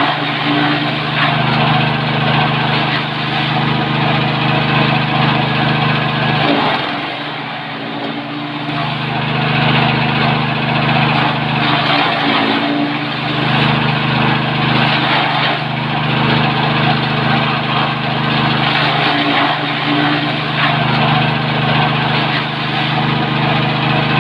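Forage chopper powered by a 6.5 hp petrol engine, running steadily while its blades shred corn stalks, the engine's drone under a dense chopping noise. The sound dips briefly about seven seconds in, then comes back up.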